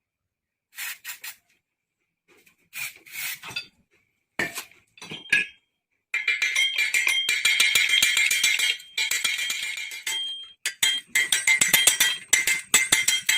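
Metal tools working rusted motorcycle parts: a few separate metallic clinks, then about six seconds of rapid metallic scraping and tapping with a ringing tone. It breaks off briefly about ten seconds in, then resumes.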